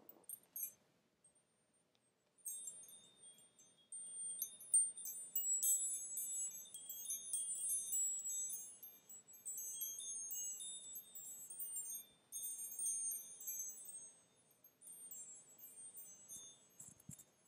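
Wind chimes tinkling: many high, bright strikes ringing and overlapping. They begin a couple of seconds in and thin out near the end.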